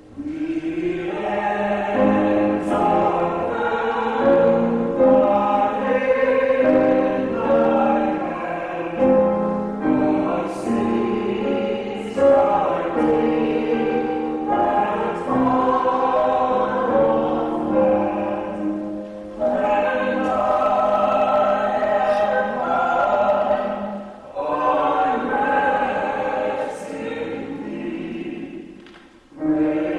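Vocal quartet singing a sacred song in harmony, in long held phrases with short breaks between them.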